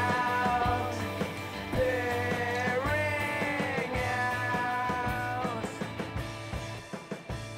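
Background music: a sustained lead melody that slides in pitch over steady low notes, fading down near the end.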